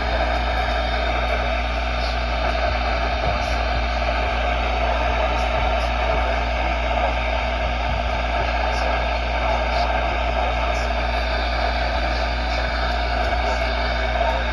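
Steady radio static hiss from a weather-radio receiver, with a constant low hum underneath.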